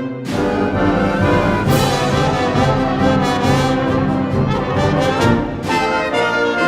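Orchestral music led by brass, with sustained chords that come in fuller just after the start.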